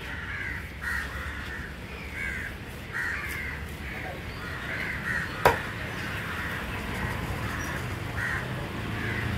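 Crows cawing repeatedly, in short harsh calls. About halfway through there is one sharp knock, a knife striking the wooden chopping block.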